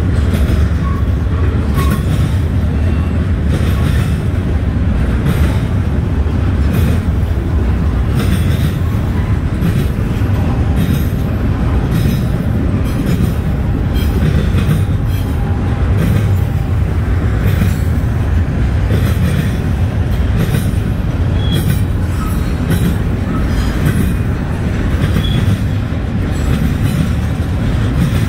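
Freight train cars rolling past close by with a loud, steady low rumble. The wheels clack over rail joints, with faint wheel squeals now and then.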